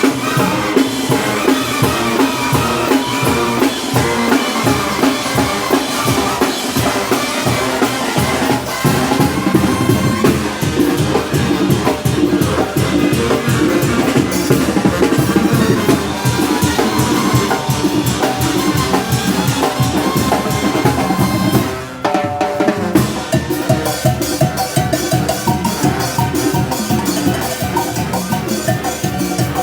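Mexican brass band (banda) playing a fast muertero-style dance rhythm, with bass drum and snare drum to the fore. The music dips briefly about two-thirds of the way through, then carries on.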